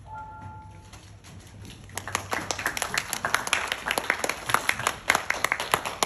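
The ballet music ends on a held note, then about two seconds in a small audience breaks into applause, the individual claps distinct.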